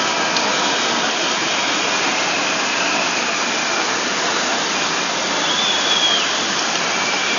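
Steady wash of rain mixed with the hubbub of a large marching crowd, no single voice standing out, and a brief faint high tone about six seconds in.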